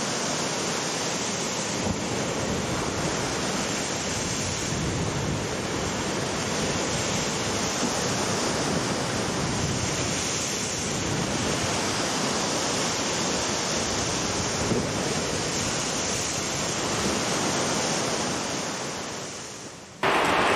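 Rough sea waves breaking and surging against a sea wall, a steady rush of surf and spray with wind; it fades down near the end and is cut off by a louder sound in the last moment.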